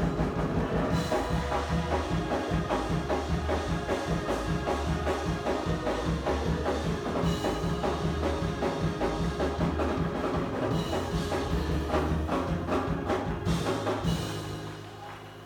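Live band music with drum kit and strong bass playing a steady, driving beat, fading out near the end.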